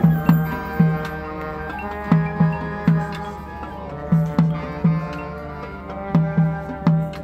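Marching band music: held chords with a repeating figure of three low, pitched drum strokes that comes back about every two seconds.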